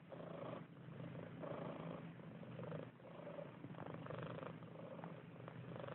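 A sleeping pet snoring softly, a low rasp that swells and fades with each breath, about one breath a second.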